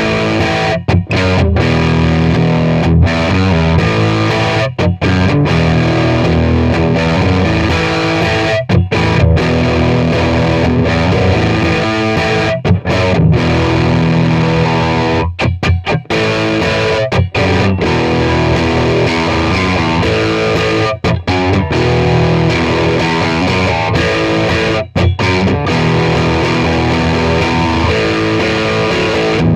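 Eko DV-10 electric guitar played through a Vox Cambridge 50 modelling amp with heavy distortion, a loud hard-rock riff broken by a few brief sudden stops.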